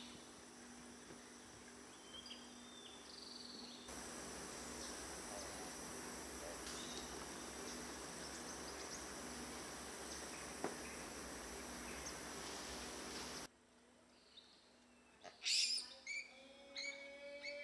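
Tropical forest ambience with a steady high insect drone through the middle. Near the end come a couple of sharp knocks and short high-pitched animal calls.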